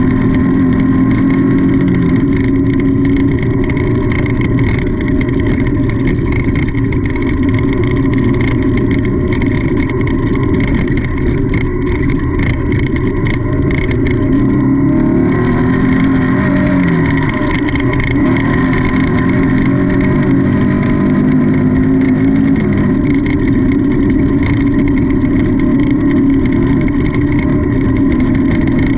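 Off-road race car's engine running hard, heard from onboard the car. Its note dips and climbs again around the middle.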